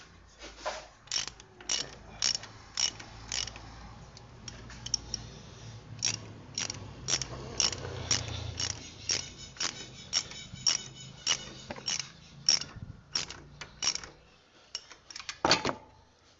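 Ratchet wrench clicking in repeated strokes, about two a second, with short pauses, as the adjuster is worked to tension a truck engine's drive belt.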